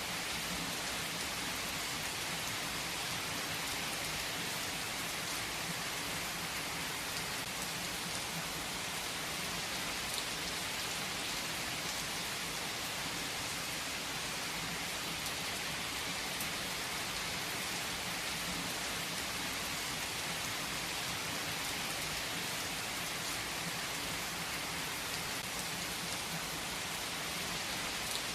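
Steady rain falling, an even hiss with scattered individual drops pattering.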